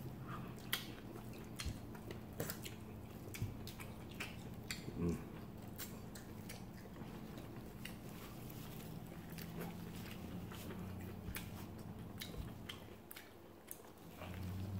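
Close-up eating sounds: chewing and biting into boiled shell-on shrimp and then corn on the cob, with irregular small clicks and smacks.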